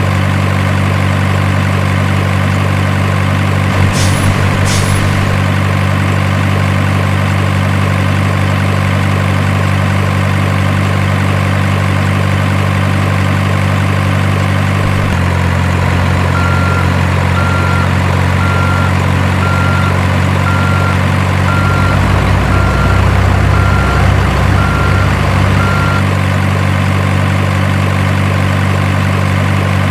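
Steady diesel truck idle from an RC dump truck, its note shifting about halfway through. Reversing beeps sound about once a second for roughly ten seconds in the second half, with a low rumble under their last few seconds. There are two short hissing clicks about four seconds in.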